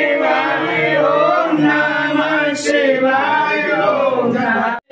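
A group of voices chanting a Hindu devotional chant during a puja, with a man's voice among them.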